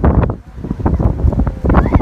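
Strong gusting typhoon wind buffeting a phone's microphone, loud and rumbling, with a brief lull about half a second in.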